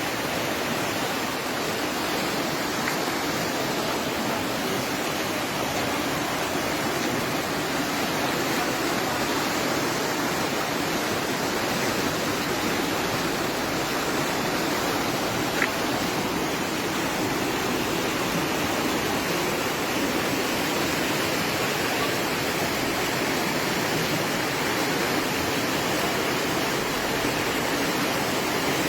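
Floodwater rushing past in a steady, unbroken roar of running water, with one brief click about halfway through.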